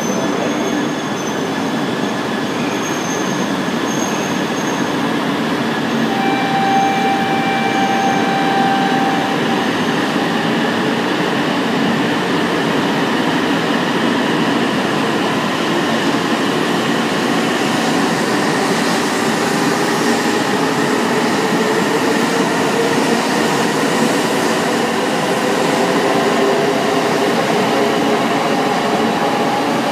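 E2 series Shinkansen train, coupled to a Komachi set, rolling past along the platform with a steady rumble of wheels on rail. A faint whine from the traction motors rises slowly in pitch as the train gathers speed.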